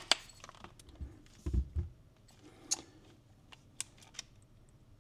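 Nikon Z7 II camera and Laowa 10mm lens being handled: a few scattered sharp clicks, with a couple of dull low knocks about a second and a half in.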